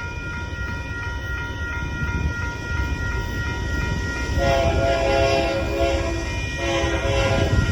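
Union Pacific freight locomotive's horn sounding two blasts about four and a half seconds in, a longer one and then a shorter one, as the train approaches a grade crossing. Under it, the crossing signal bell rings steadily and the train's low rumble grows louder.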